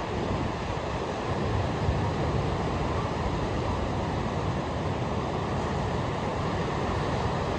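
Ocean surf washing on a beach as a steady wash of noise, with wind rumbling on the microphone.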